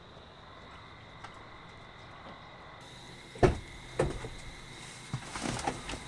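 A car's passenger door clunks twice, about half a second apart, as someone gets into the car. Rustling follows as they settle into the seat.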